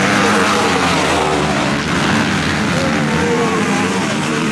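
Several motocross bikes racing along the dirt track, their engines revving up and down through the gears as they ride past, with overlapping engine notes.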